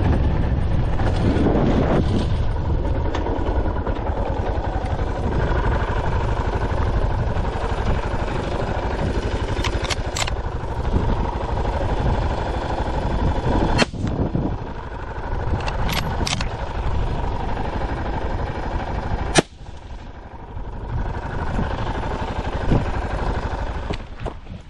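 Two rifle shots from a Savage Axis in .223, about five and a half seconds apart, the second the louder, over a steady low noise.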